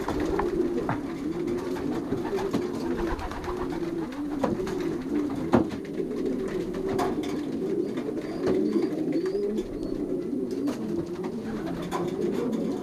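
Many domestic racing pigeons cooing together in a loft, their low coos overlapping without a break, with scattered sharp taps among them.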